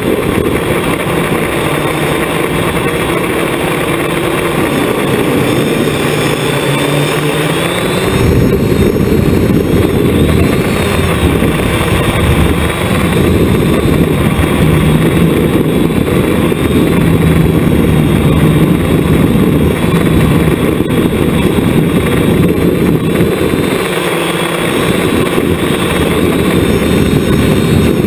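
Hexacopter's six electric motors and propellers whirring, heard up close from a camera mounted on the craft. The pitch drifts up and down as the throttle changes, over a steady rushing noise.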